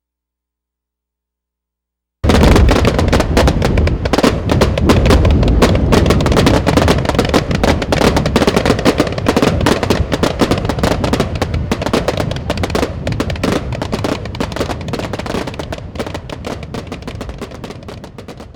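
Fireworks barrage: a dense, rapid run of bangs and crackles that starts suddenly about two seconds in and slowly fades toward the end.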